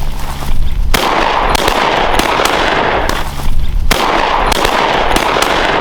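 Several shotgun shots fired in quick succession by hunters at a flushed pheasant, with two standing out as the loudest, about a second in and about four seconds in.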